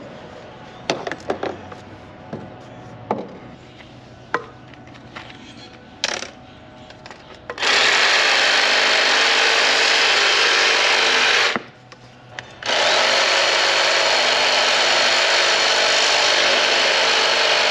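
Compact cordless reciprocating saw cutting PVC conduit: two long even runs of about four and five seconds with a short break between. Before them come a few light knocks and clicks as the pipe is handled.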